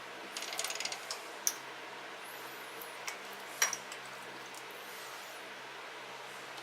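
Grease gun being put to work on the snow thrower's transmission: a quick run of metallic clicks and rattles about half a second in, then a few single clicks, over a steady low hum.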